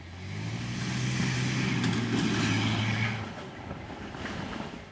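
1995 Chevy Blazer 4x4 driving past off-road, its engine running steadily. It grows louder over the first second and drops away after about three seconds.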